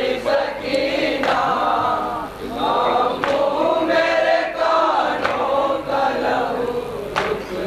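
Group of men chanting an Urdu nauha (Shia lament) in unison through a PA system, the closing stanza. A sharp beat falls about every two seconds, from matam, hands striking chests in time.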